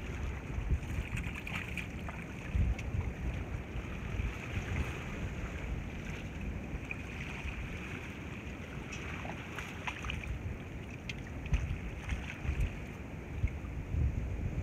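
Wind buffeting the microphone in uneven gusts over a steady rush of open-air noise, with a few faint clicks.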